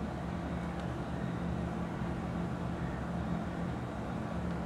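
A steady low hum over a constant rumbling background noise, with no distinct events.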